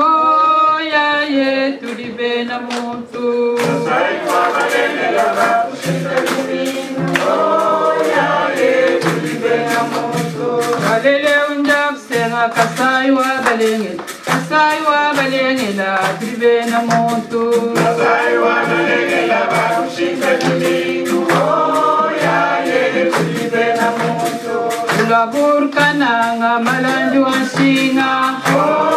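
A song playing as background music, with group singing; a steady percussive beat comes in about four seconds in.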